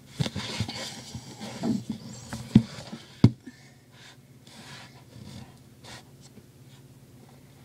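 Handling noise from the recording device as it is moved and turned toward a screen: rubbing and rustling, then two sharp knocks about two and a half and three seconds in, followed by quiet room tone with a few faint taps.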